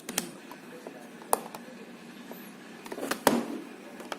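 Alarm clock being handled: a few sharp clicks and knocks, one at about a second in and a louder cluster about three seconds in, over a faint steady hum.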